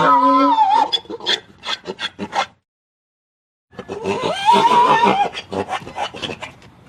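Donkey braying twice, each bray a long arching call that breaks into a quick run of rasping gasps. The first is already under way, and the second starts after a pause of about a second.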